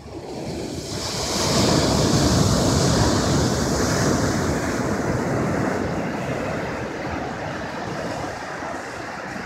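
Ocean surf: a wave breaks and its foam washes up the beach, swelling about a second in and slowly easing off.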